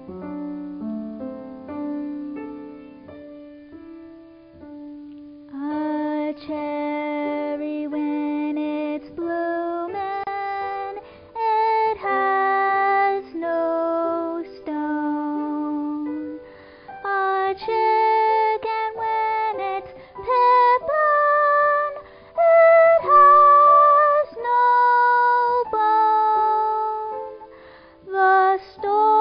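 A young woman's solo singing voice with grand piano accompaniment in a slow ballad. The piano plays alone at first, and the voice enters about five and a half seconds in, singing sustained phrases with vibrato.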